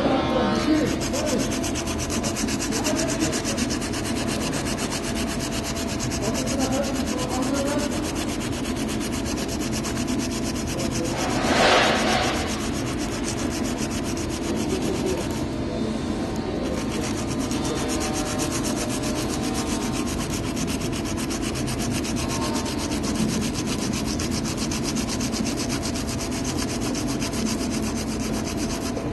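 Coarse P60–P80 sandpaper sanding the oak end grain of a wooden barrel head, a steady scraping with a brief louder surge about twelve seconds in. The sanding takes the surface back so that the exact spot where wine seeps through the wood can be seen.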